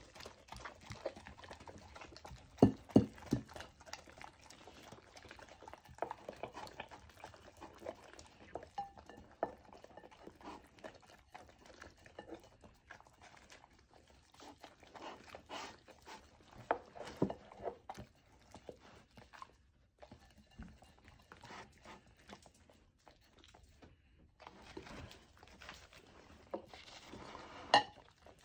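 Two dogs eating and licking food off ceramic plates: wet lapping and smacking with irregular clicks of tongues and muzzles against the plates, and a louder knock near the end.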